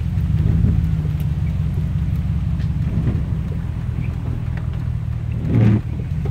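Car running and rolling slowly, heard from inside the cabin as a steady low rumble. A brief voice sound comes near the end.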